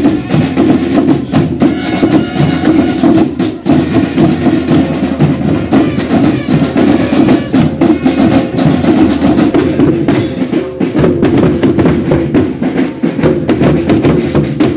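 Marching band playing: drums beating a steady rhythm under a pitched melody.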